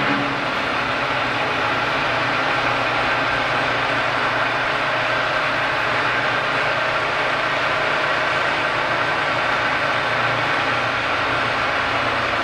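Electric drive motors of a Ritter R-525 case clamp running steadily with a low hum as its pressure beams are moved.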